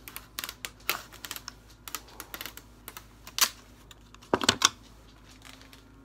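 Clear packing tape being pulled from its roll and wrapped onto a tripod's plastic phone clamp: rapid sticky crackles and clicks, with louder bursts about a second in, about three and a half seconds in, and twice around four and a half seconds in.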